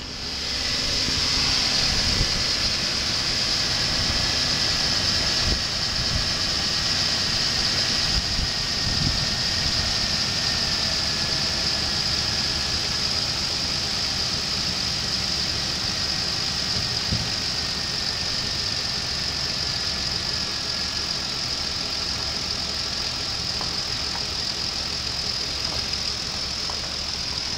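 Ford Explorer's 4.0-litre SOHC V6 running steadily at idle, with a steady high hiss over the engine note.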